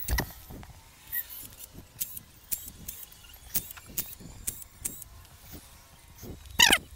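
Metal hand tools clinking and tapping on a motorcycle engine: one sharp knock at the start, then scattered light clicks about twice a second, and a brief squeak near the end.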